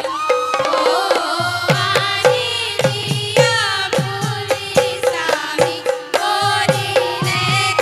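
Assamese devotional folk song (dihanam) sung by women's voices, with barrel-drum strokes whose low tones drop in pitch keeping a steady rhythm.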